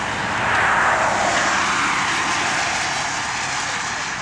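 Steady rushing noise of a passing vehicle that swells about a second in and then slowly fades away.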